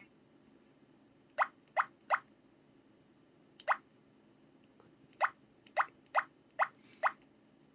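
Electronic button sound of a PT-L2200: nine short rising "plop" blips, one per button press, in irregular groups: three close together, one alone, then five in quick succession.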